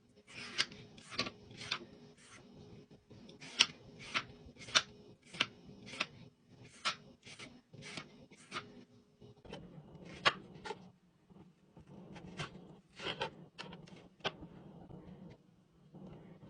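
A cucumber being peeled: repeated short scraping strokes of the blade along the skin, about two a second, with a few short pauses.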